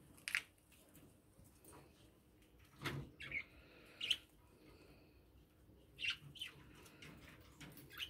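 Budgerigars giving a handful of short, separate chirps spread across a few seconds. There is a soft thump about three seconds in.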